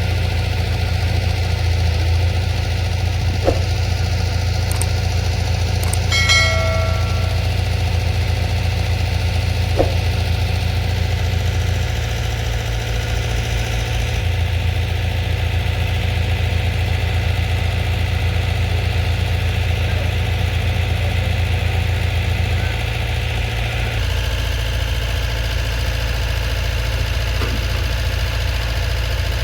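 Diesel engine of a Komatsu PC210 hydraulic excavator running steadily at a low, even pace. A brief high-pitched tone sounds about six seconds in, and a few light knocks are heard.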